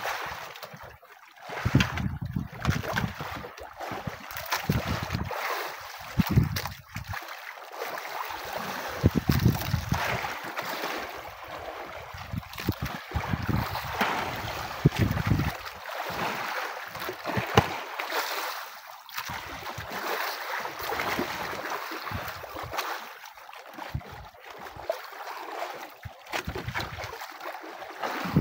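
Wind gusting on the microphone over the wash of sea waves around an outrigger boat, with irregular low rumbles and no engine running.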